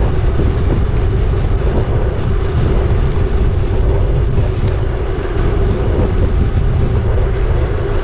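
Heavy wind rumble buffeting the microphone of a camera riding on a moving bicycle, with a steady hum running under it.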